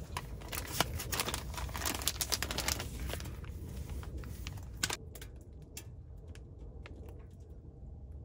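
Crinkling and rustling of packaging being handled, dense for about five seconds, then thinning to scattered clicks and taps.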